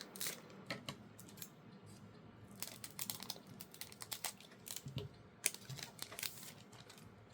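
Foil booster pack wrapper crinkling and crackling as it is handled, in irregular small crackles and clicks.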